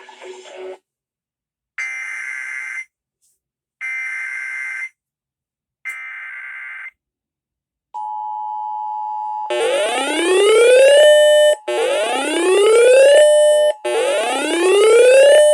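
Three one-second bursts of the warbling data tones of an EAS/SAME alert header, a second apart. After them comes the steady 1050 Hz NOAA Weather Radio warning alarm tone. From about a second and a half later it is joined by a loud alarm whose pitch rises in a whoop, repeating about every two seconds.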